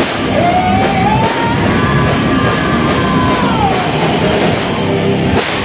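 Rock band playing live and loud, guitar and drums, with a long held note that rises slowly, holds, and falls away about four seconds in.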